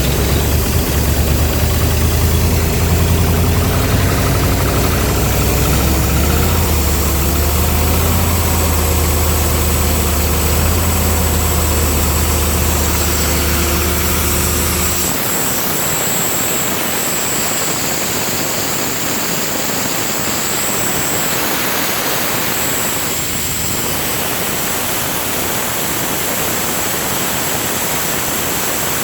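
Carbureted gasoline engine of an engine-driven air compressor running cold with the choke pulled out, a steady low-pitched run. About halfway through the engine note drops out and a steady loud hiss is left.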